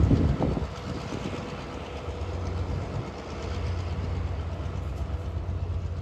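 Diesel locomotive hauling a passenger train, its engine a steady low rumble as it rolls slowly toward a road crossing. There is a short burst of clatter about the first half second.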